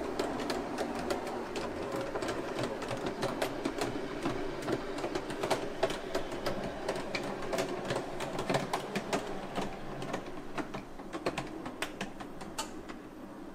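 KM1 Gauge 1 (1:32) model of DR steam locomotive 18 201 running on model track through a tight curve: a steady whirr from its drive, with many small irregular clicks and rattles from the wheels on the rails. The sound eases slightly near the end.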